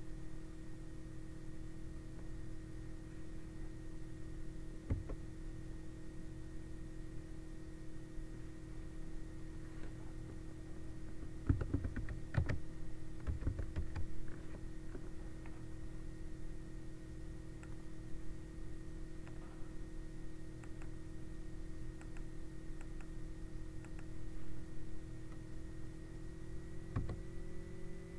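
Sparse clicks of computer keys, clustered around the middle, over a steady electrical hum made of a few constant tones.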